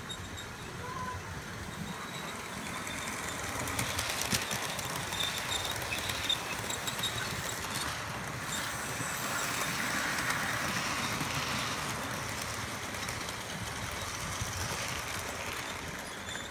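Model GWR pannier tank locomotive and its train of wagons running past on the track: a rolling, whirring rumble that grows louder to a peak about ten seconds in and then fades, with a few sharp clicks of wheels on the rails.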